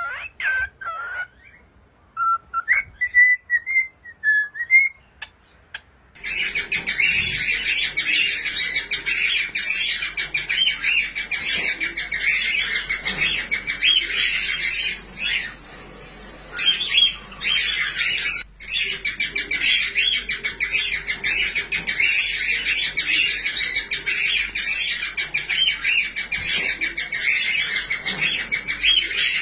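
A whiteface cockatiel whistles a few short notes that glide up and down. From about six seconds in comes dense, rapid, continuous chirping, the begging of a newly hatched cockatiel chick being fed by its parent, with a couple of brief breaks.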